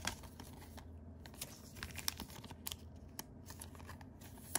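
A trading card being handled and slid into a thin clear plastic sleeve: soft plastic crinkling with scattered light clicks and rustles of card and plastic.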